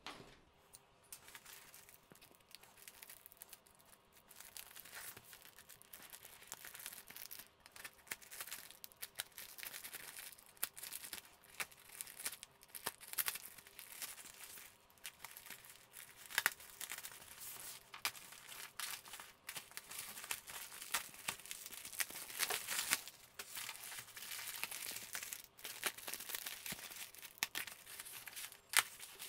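Clear plastic shrink-wrap being slit with a small blade and peeled off a cardboard package: a long run of irregular crinkling and tearing of the film, with many small sharp crackles.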